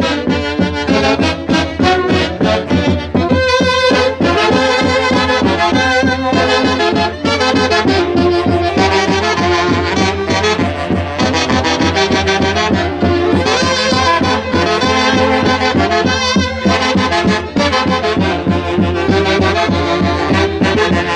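Saxophone section of an Andean orquesta típica playing a Santiago festival tune live, several saxophones sounding the melody together over a steady beat.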